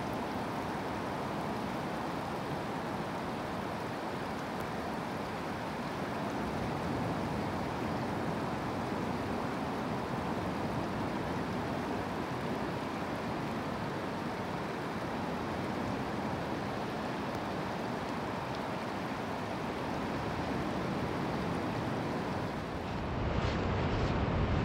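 Steady wash of Pacific Ocean surf breaking offshore. Near the end the sound turns louder and deeper, with wind on the microphone.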